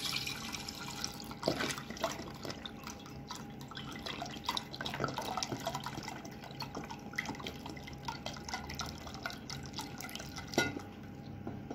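Milk pouring from a carton into a stainless steel pot, a continuous splashing stream into the milk already in it. A couple of light knocks sound about a second and a half in and near the end.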